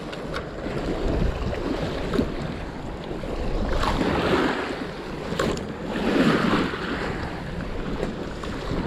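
Wind buffeting the microphone, with water splashing at the shoreline; the water swells louder twice, about four and six seconds in, and a few light clicks are heard.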